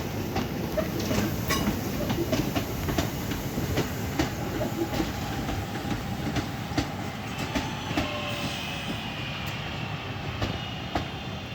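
A passenger train moving slowly through the station, its wheels clicking over rail joints with a low rumble underneath. From about six seconds in, a faint steady high whine joins.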